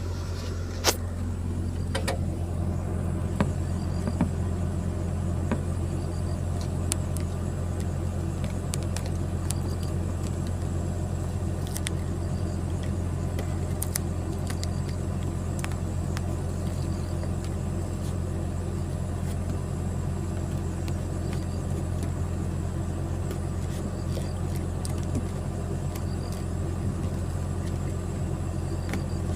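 Excavator's diesel engine running steadily, with a few short sharp clicks over it.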